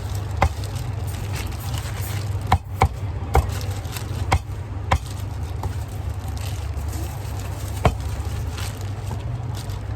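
Cleaver chopping on a wooden chopping block: about seven sharp strikes at irregular intervals, bunched in the first half, over a steady low hum.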